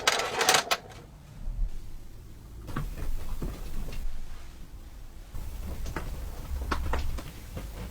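Tinplate toy being handled: a cluster of light clicks in the first second, then scattered single clicks and knocks every second or so.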